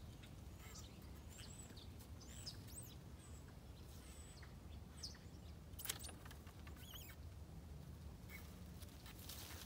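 Birds chirping faintly with short, high calls that rise and fall, scattered throughout, and a single sharp click about six seconds in.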